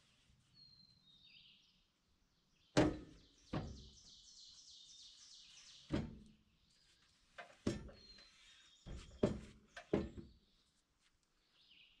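Wooden boards being set down and knocked into place on a portable sawmill's bed: about half a dozen hollow wooden thunks at uneven intervals, the loudest about three seconds in. Birds chirp between the knocks.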